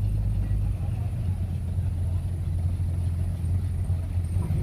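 Heavy diesel engine of earthmoving machinery running steadily, a deep even drone.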